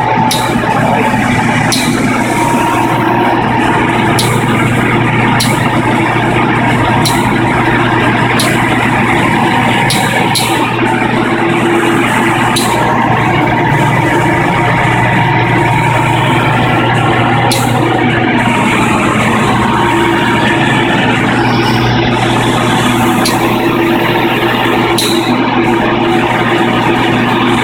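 Crematorium furnace running loudly and steadily, with a low hum and sharp clicks every one to two seconds, a noise the operator puts down to a valve.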